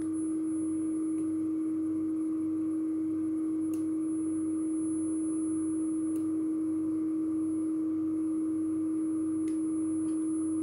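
Steady 315 Hz test tone from a reference cassette playing in a Nakamichi CR-4 tape deck, with a fainter 10 kHz tone above it, used to set the playback head's azimuth. A few faint clicks come through.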